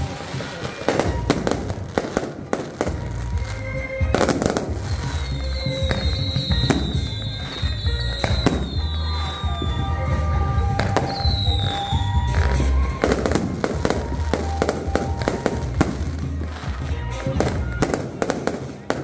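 Aerial fireworks bursting in quick succession, with bangs and crackling throughout and a heavy low rumble. Around the middle come several high whistles, each falling in pitch.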